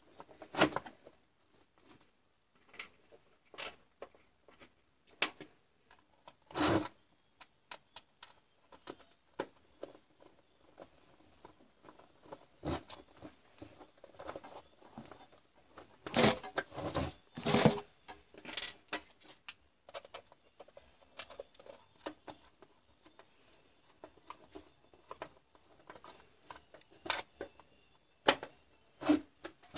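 Hands handling a plastic cordless-drill battery pack and small parts: scattered clicks, taps and scrapes of plastic, with a cluster of louder knocks about halfway through.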